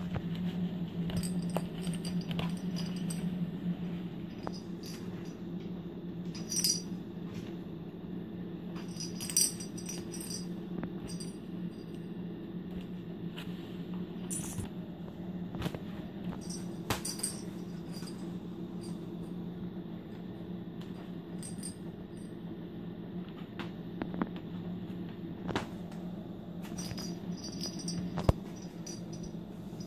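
Kittens playing in a fabric-and-mesh cat play tent: scattered light rattling, clicking and tapping as they scramble on the mesh and bat at toys, over a steady low hum.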